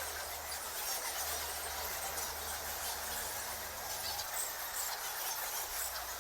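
A colony of bats in a cave squeaking: a dense, continuous mass of many overlapping high-pitched squeaks.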